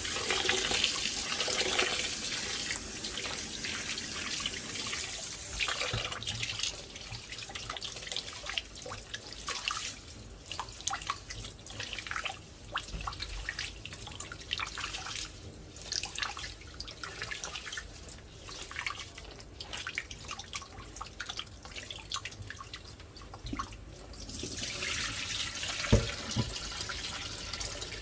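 Kitchen tap running while rice is washed by hand in a pot. There is steady running water at first and again near the end, with irregular splashing and dripping in between, and one sharp knock near the end.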